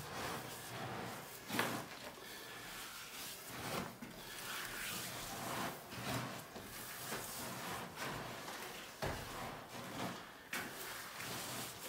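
Handling noises: irregular rubbing and scraping with scattered knocks, the sharpest about a second and a half in.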